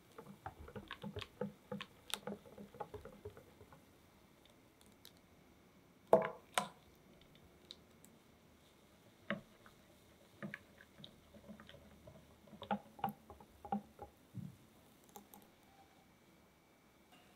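A whisk stirring runny chocolate crepe batter in a glass bowl, the wires ticking and clicking against the glass in quick irregular runs. Two sharp knocks about six seconds in.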